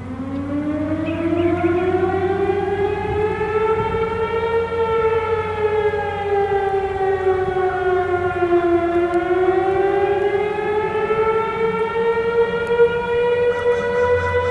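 Mechanical outdoor warning sirens: a Sterling STH-10B in attack mode winds up from a low pitch, rises and falls in a slow wail, then climbs again. Under it a Federal Signal 3T22A holds a steady alert tone.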